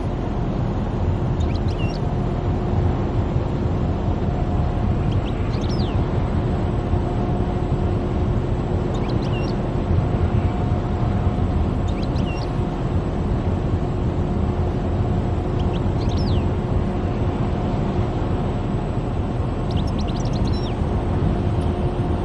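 Steady road noise of a moving car, tyre and engine rumble with a steady hum. Short high chirps come every few seconds over it.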